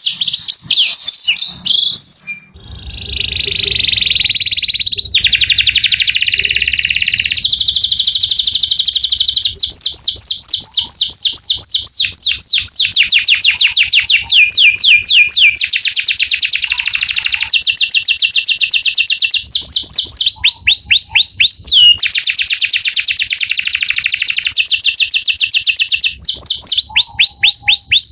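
Male canary singing a long, loud song of fast trills, each phrase a rapid run of the same sweeping note, switching to a new phrase every few seconds after a brief break near the start.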